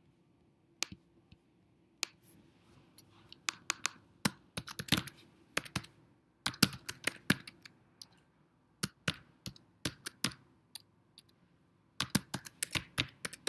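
Typing on a computer keyboard: quick runs of key clicks with short pauses between them, as a filename is typed in.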